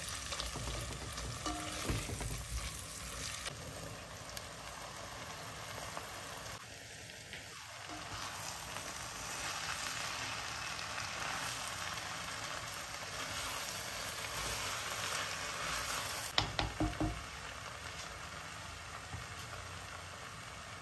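Onion, green peppers and pepper paste sizzling in hot oil in an enamelled pot while a spatula stirs them, later with lentils stirred through. A few sharp knocks of the spatula against the pot come about three-quarters of the way through.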